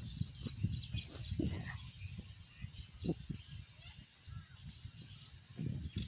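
Small birds chirping over a low, uneven rumble of wind on the microphone, with a few soft thumps.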